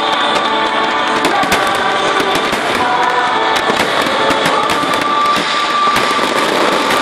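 Fireworks display: aerial shells bursting with many sharp bangs and crackles in quick succession.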